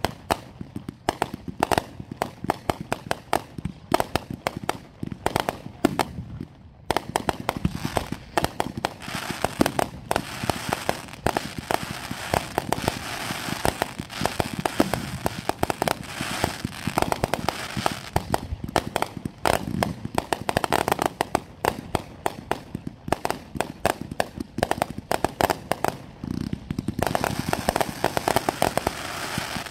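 Fireworks display: a rapid, continuous run of bangs and crackling bursts. There is a short lull about seven seconds in, and the crackle thickens near the end.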